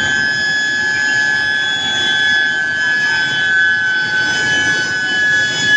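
Induction billet heating furnace running: a steady high-pitched whine from the induction coil, with several higher overtones, over a rough machinery noise. The whine drops slightly in pitch about three seconds in.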